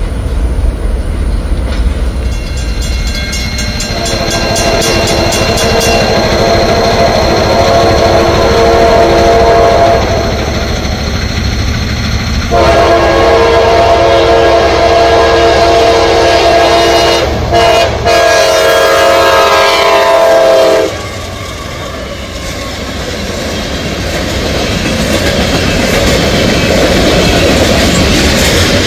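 Freight train rolling, then its locomotive horn sounding two long blasts for a grade crossing. The train then passes close by, with wheels clicking and rumbling over the rail joints.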